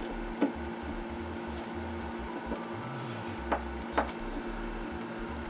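Hand screwdriver driving a Phillips-head screw into wood: a few sharp clicks, about half a second in and twice near the end, over a faint steady hum.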